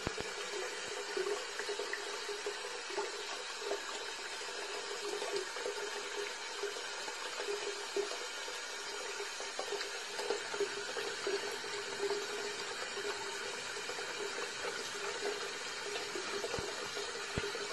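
Bathroom tap running a thin, steady stream of water into a white washbasin.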